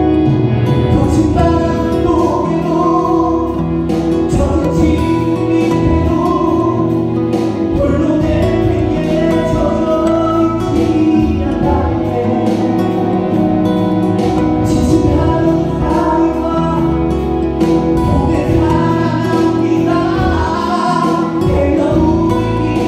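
A man singing into a microphone over instrumental backing music.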